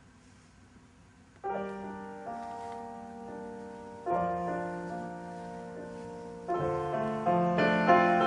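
Near silence, then piano music comes in about a second and a half in: slow held chords, a new one every two and a half seconds or so, growing louder and busier near the end.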